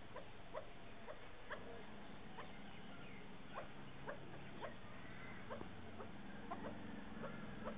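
Chukar partridges calling: short, sharp clucking notes that come irregularly, about once or twice a second.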